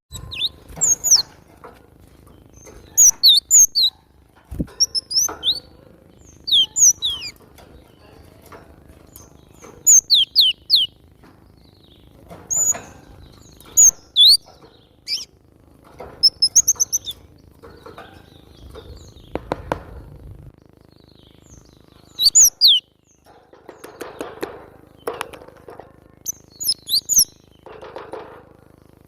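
Cinereous tit (glatik batu) singing and calling in short bursts of sharp, high chirps, one cluster every second or two, with softer scratchy noises in between near the end.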